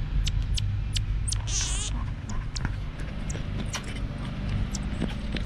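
Pygmy marmoset close to the microphone, making many short, very high chirps and clicks, with one brief shrill trill about a second and a half in. A low rumble underneath comes from its fur brushing against the microphone.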